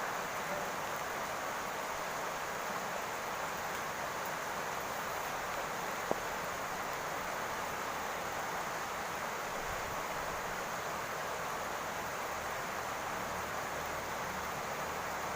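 Steady rain falling on a roof, an even hiss, with a single sharp click about six seconds in.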